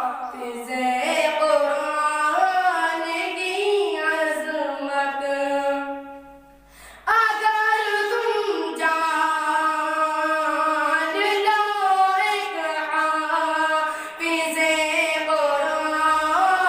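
A boy singing an Urdu nazm solo into a microphone, a single voice drawing out long, gliding notes. He breaks off briefly about six seconds in, then carries on.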